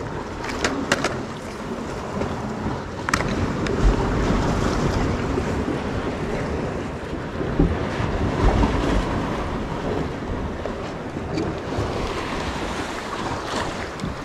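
Wind buffeting the microphone over surf breaking on the shore: a steady rushing noise that swells in gusts, with a few sharp clicks in the first three seconds.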